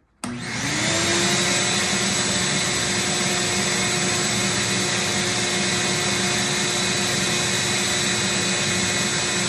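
Shop vac switched on about a quarter second in, its motor whine rising and settling within a second, then running steadily as it pulls air through a cyclone dust separator.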